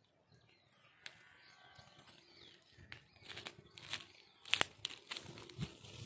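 Faint rustling and crackling of dry grass and leaf litter, with a few sharp clicks, the loudest about four and a half seconds in.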